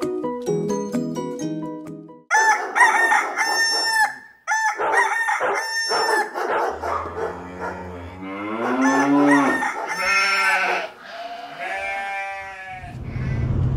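Plucked ukulele music ending about two seconds in, then a rooster crowing several times, long loud calls. Near the end a car engine starts and settles into a steady low hum.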